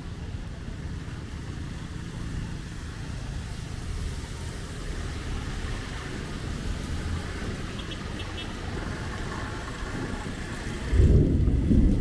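Road traffic on a rain-soaked city street: a steady low rumble of passing cars under an even hiss. About a second before the end, a sudden, much louder low rumble breaks in.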